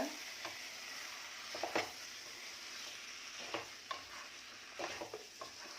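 Chicken pieces in a tomato-masala sizzling in oil in a pan while being stirred, with a steady sizzle and scattered short scrapes and knocks of the stirring utensil against the pan.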